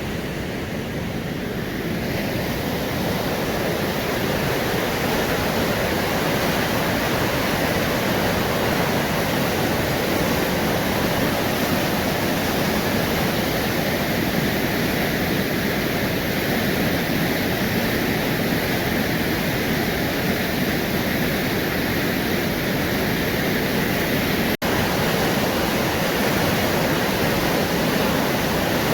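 Steady rushing of river water by an old mill, an even hiss with no changes. Near the end it cuts out for an instant.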